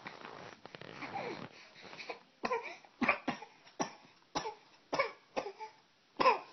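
A child's deliberately faked coughing: a row of about eight short, sharp coughs, roughly two a second, starting about two and a half seconds in after a softer, breathy sound.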